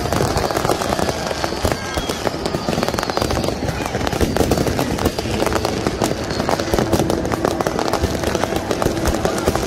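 Many fireworks and firecrackers going off at once in a continuous, dense crackle of bangs, with people's voices underneath.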